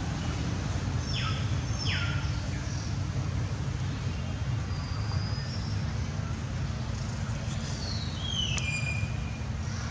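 Forest ambience: a steady low rumble with birds calling over it, short whistles that slide down in pitch about a second in, about two seconds in, and again near the end.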